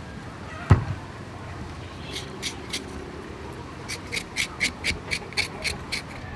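A knife chopping a bitter gourd on a chopping board: one heavier knock about a second in, a few crisp cuts, then a quick run of crisp cuts at about four a second near the end.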